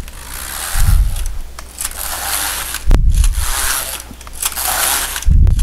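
Passap electronic knitting machine's carriage pushed back and forth across the needle beds, knitting plain rows: three passes, each a scraping hiss that ends in a thump as the carriage stops at the end of its stroke.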